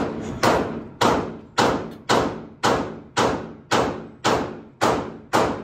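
Gunfire in an indoor shooting range: about ten shots at an even pace of roughly two a second. Each shot has a short echo off the range walls.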